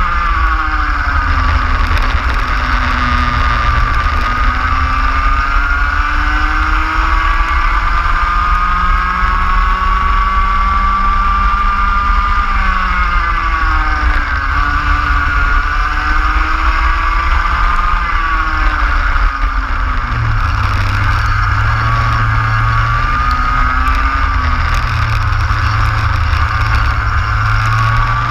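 Racing kart engine at race pace, its pitch climbing along the straights and dropping as it slows for corners, several times over. A steady low rumble of wind on the microphone runs underneath.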